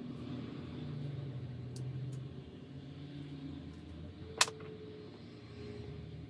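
Low steady background hum, broken about four seconds in by one sharp click with a short faint ring after it: a small screw removed from the iPad's LCD being set down on a magnetic screw mat.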